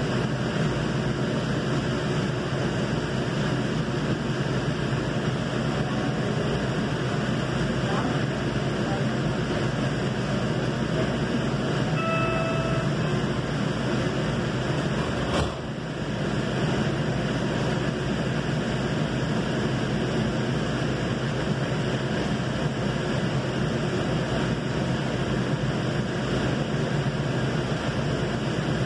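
Valley Metro light rail car running along the line, heard from inside as a steady low rumble. A short high tone sounds about twelve seconds in, and a brief click with a dip in the sound comes a few seconds later.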